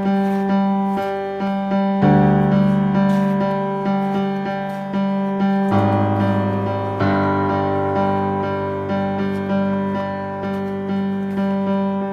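Background music: a piano playing evenly repeated notes, about two or three a second, each fading before the next, with the chord changing a few times.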